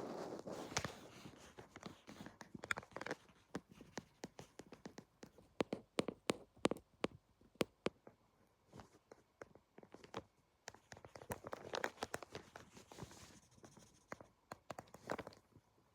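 Pencil drawing on paper: scratchy strokes mixed with many sharp taps and clicks, with longer stretches of scribbling at the start and again about eleven to thirteen seconds in.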